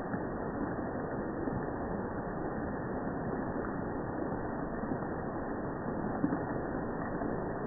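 Steady rain falling on jungle foliage, an even hiss with a couple of sharper drop hits a little past the middle.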